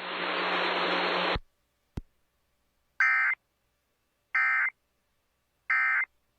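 Radio static hiss with a low hum for about a second and a half, a click, then three short shrill data bursts about a second and a half apart: the SAME end-of-message (EOM) tones of a NOAA Weather Radio Emergency Alert System broadcast, marking the end of the alert.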